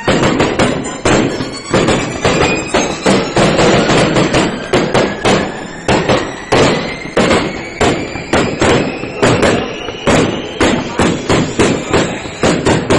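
Aerial fireworks battery firing shot after shot, a rapid run of sharp bangs at about two to three a second.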